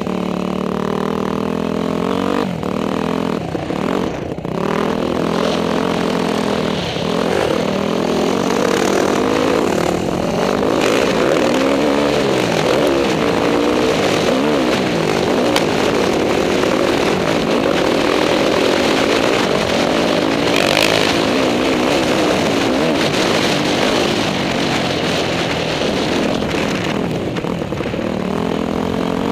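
Motocross dirt bike engine revving up and down as the rider accelerates, shifts and backs off, its pitch rising and falling over and over, heard from a helmet-mounted camera.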